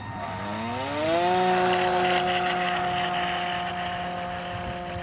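Electric motor and propeller of a radio-controlled model Cessna 182 spooling up over about a second into a steady whine and holding there. It is running on a flat battery and lacks the power to get the plane off the ground.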